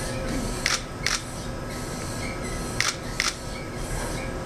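ANCO MTS shake table running an earthquake simulation under a 5,000-pound stone pinnacle: a steady mechanical noise with faint squeaks, broken by sharp clicks in two pairs, about a second in and near three seconds in.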